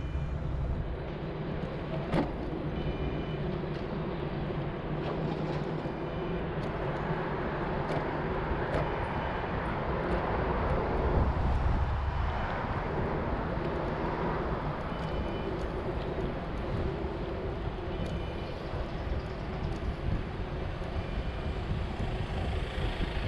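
Outdoor city street ambience: a steady low rumble of traffic, swelling as a vehicle passes about ten to twelve seconds in. A short high chirp repeats about every three seconds, and there is a single click about two seconds in.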